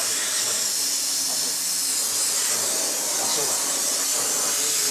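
Gas brazing torch flame hissing steadily as it heats a bridge being brazed between the chainstays of a steel bicycle frame.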